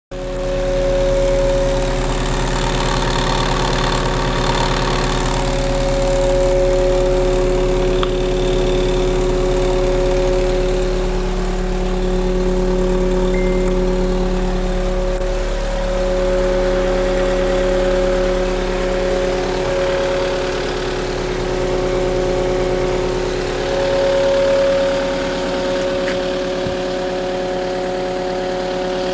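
An engine running steadily with an even, continuous hum.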